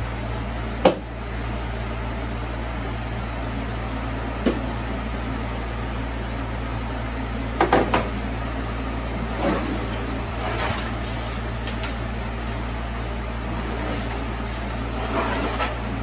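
A one-handed bar clamp set down and handled on a curved plywood panel: three quick wooden knocks about eight seconds in, with single sharp knocks about a second in and midway, and some light handling rustle later. A steady low machine hum runs underneath.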